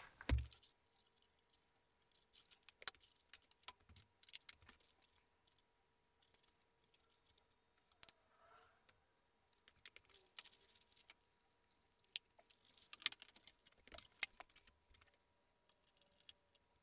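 Faint, scattered clicks and light rattles from handling small parts as a composite wingtip tank and its light wiring are fitted back onto a model jet's wing, over a faint steady hum.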